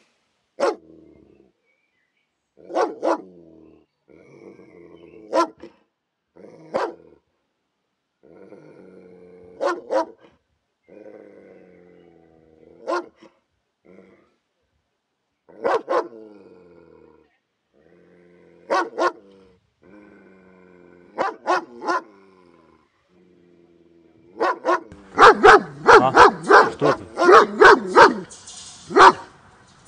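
German shepherd barking: single or paired sharp barks every couple of seconds, with low drawn-out sounds between them, breaking into rapid, continuous barking near the end.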